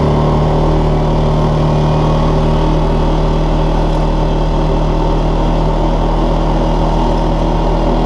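2014 Linhai Big Horn 400 UTV's single-cylinder engine running at a steady speed as the machine is driven.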